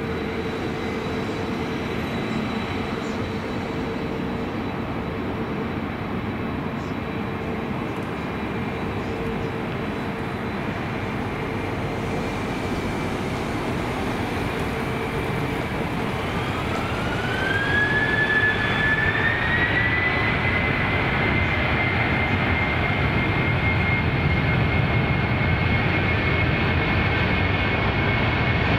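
Boeing 767-300ER twin-engine jet airliner: a steady jet rumble, then a little past halfway a rising whine as the engines spool up to takeoff thrust, growing louder and settling into a steady high whine for the start of the takeoff roll.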